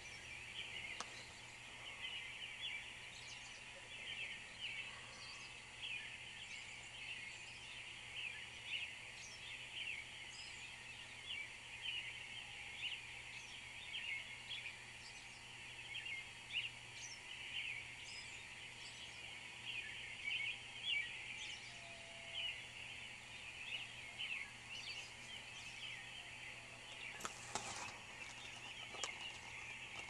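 A morning chorus of many birds singing at once: a continuous dense stream of short, overlapping high chirps.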